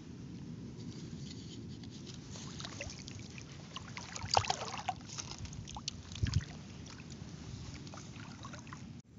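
Water sloshing and splashing with scattered small knocks and clicks as something is moved about in shallow water, with a louder splash about four seconds in and a short thump about six seconds in.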